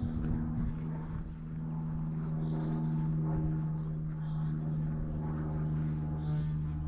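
A steady low motor hum, with short high bird chirps heard several times.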